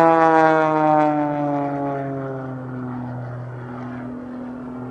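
Pitts Special 'Super Stinker' aerobatic biplane's piston engine and propeller passing overhead. The engine drone is loudest at first, drops in pitch over a second or so, then holds a steady lower note as the plane pulls away into a climb.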